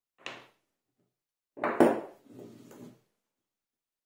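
Metal mount parts and tools knocking and clattering on a table as they are handled. A short knock comes first, then a louder clatter with a sharp click just under two seconds in, trailing off into lighter rattling.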